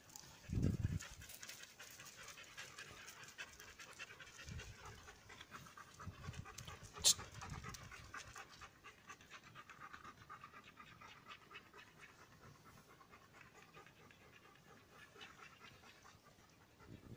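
Dogs panting steadily, with a low thump about half a second in and a single sharp click about seven seconds in.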